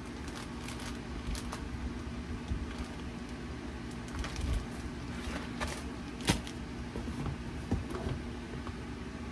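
Scattered light clicks and knocks from handling food and containers in a kitchen, over a steady low hum.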